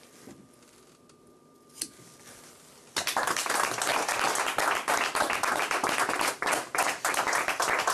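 A single sharp click in the quiet, then a small group breaks into applause suddenly about three seconds in and keeps clapping.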